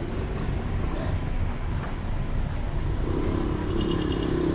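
Low, steady rumble of a car's engine and tyres during a slow drive. About three seconds in, another vehicle's engine hum joins it and grows louder as it approaches.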